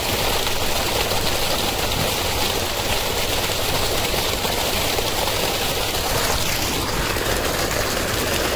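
Engine running steadily with a low rumble.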